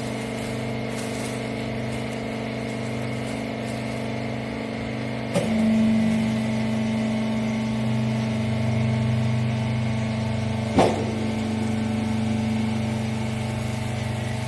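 Hydraulic bagging baler's power unit running with a steady hum. About five seconds in a sharp clunk comes and the hum's tone changes, and a second clunk follows near eleven seconds.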